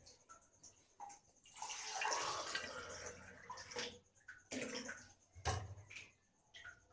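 Water sloshing and splashing in a steel bowl as a hand rubs and swishes soaked dal to wash it, busiest in the first half, with a single knock a little past the middle.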